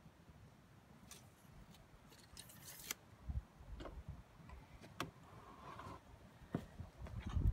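Scattered faint clicks and taps, with one short scrape, of a pressure-treated board being handled and marked with a pencil.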